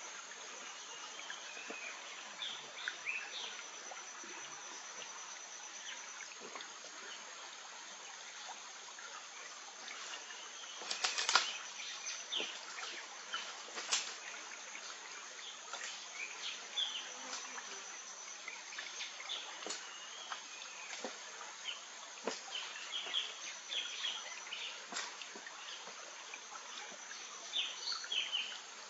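Quiet forest ambience: a thin high insect drone that comes and goes over an even hiss, with scattered short bird chirps. Sharp clicks and knocks of footsteps on loose stream-bed stones come now and then, loudest about eleven seconds in.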